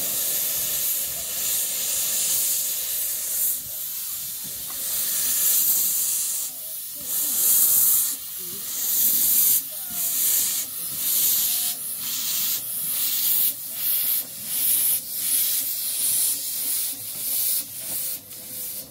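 12¼-inch gauge miniature steam locomotive starting away with its train: steam hissing steadily from the open cylinder drain cocks, with exhaust beats that begin slow and quicken to about two a second.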